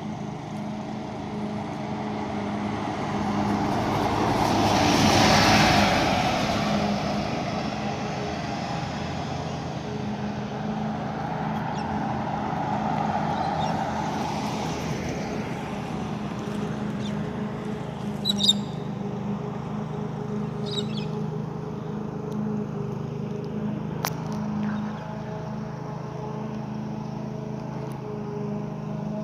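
Volvo B8RLE bus with a diesel engine, pulling up at a stop: its engine noise rises to a peak about five seconds in, then the bus idles steadily. A few short clicks and hisses come in the second half.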